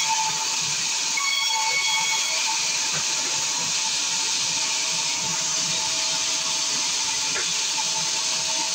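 Large vertical band saw running with a steady high hiss and a faint whine as its blade rips through timber.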